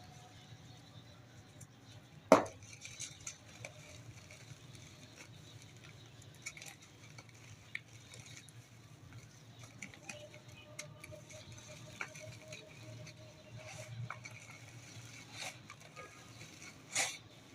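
Dry dirt clumps being crumbled: sparse small crackles and gritty ticks, with a sharp crack about two seconds in and another near the end, over a steady low hum.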